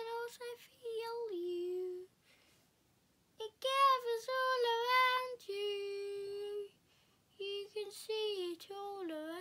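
A young boy singing solo without accompaniment, in three phrases with short silent pauses between them, the last phrase sliding down in pitch at its end.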